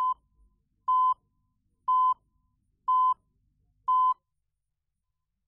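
Television countdown leader beeping: five short, identical, steady beeps, one a second, marking the count from six down to two.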